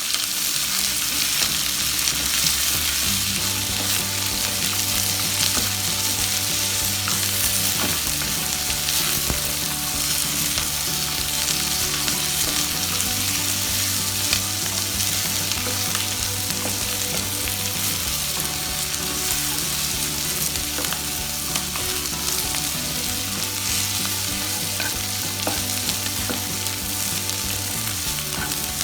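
Sliced capsicum, onion and cashews sizzling in hot oil in a frying pan over a high flame as they are sautéed and stirred, a steady frying hiss.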